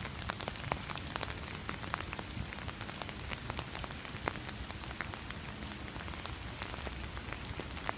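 Calm, steady rain: a soft hiss of rainfall with many separate drops ticking sharply and irregularly on a small personal umbrella overhead.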